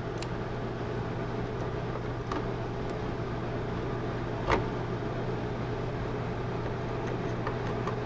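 Steady low electrical hum and hiss of room noise, with a few faint clicks of SDRAM memory modules being fitted into the memory slots of a Power Mac G4's logic board; one sharper click comes about halfway through.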